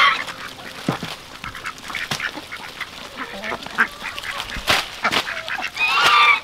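A flock of ducks and chickens feeding on lettuce greens: ducks quacking over many short pecking clicks and snaps. A louder, drawn-out call comes near the end.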